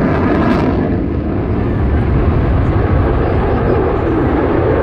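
Distant Aermacchi MB-339 jet aircraft passing in a display, its engine hiss fading about half a second in and leaving a steady low rumble.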